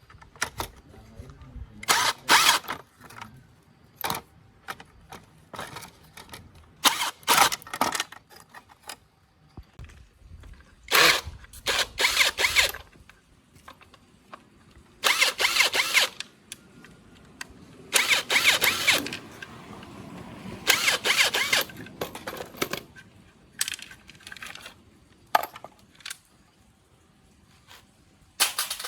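Repeated short bursts of a power or air tool, with small clicks and knocks of metal parts between the bursts.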